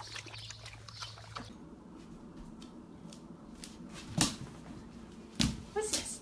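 Golden retriever puppies lapping water from a plastic kiddie pool: quick small wet clicks over a low hum. Then, in a small room, two sharp knocks about four and five seconds in, with a short pitched sound near the end.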